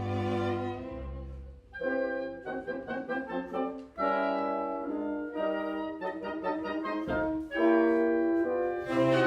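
Chamber orchestra playing a classical piece: sustained string and wind notes in changing chords, with a short drop in level about a second and a half in and a fuller, louder entry near the end.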